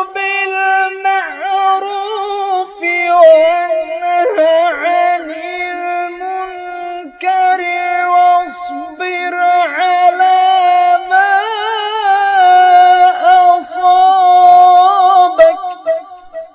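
A man's voice reciting the Quran in the melodic tajweed style, drawing out long high notes with quavering ornaments and a few short breaks. The voice fades out near the end.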